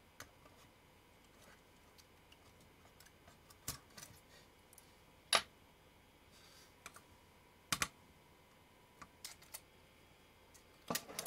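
Scattered clicks and taps of small plastic and sheet-metal parts of a JVC GR-D725 miniDV camcorder being handled and pulled apart, as a circuit board is taken off and a metal chassis frame is lifted. The single clicks come a few seconds apart, with a sharp one about five seconds in and a quick cluster of clatter near the end.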